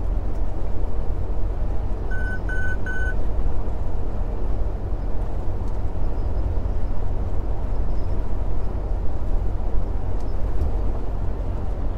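Steady in-cab drone of a diesel semi-truck cruising at highway speed: a deep engine hum under road and wind noise. About two seconds in, three short electronic beeps sound in quick succession.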